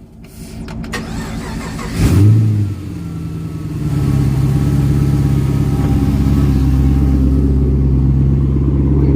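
Chevrolet Camaro SS's 6.2-litre V8 blipped once about two seconds in, then running steadily from about four seconds on. The engine carries a misfire that the code scan traced to spark plugs with heavy deposits.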